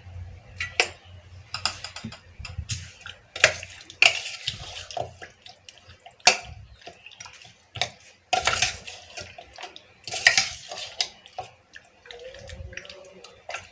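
Raw chicken pieces being mixed in a wet yogurt-and-spice marinade in a bowl: irregular wet squelching and squishing with occasional clicks against the bowl.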